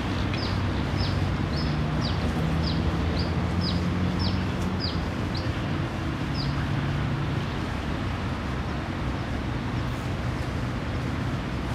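Steady low outdoor rumble with a faint hum. Over it, a short high chirp, falling in pitch, repeats about twice a second and stops a little past halfway.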